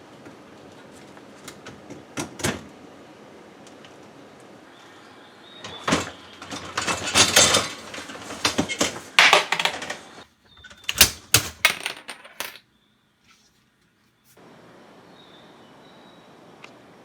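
A few sharp clicks, then a stretch of clattering and clinking of hard small parts being handled, which cuts off suddenly about two-thirds of the way through.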